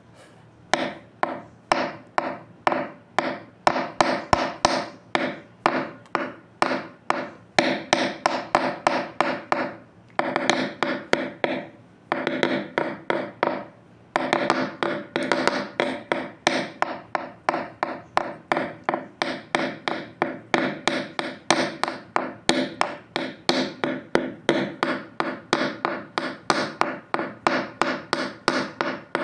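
Rapid, steady run of pitched knocks, about three to four a second, each ringing briefly before the next, broken by short pauses about ten, twelve and fourteen seconds in.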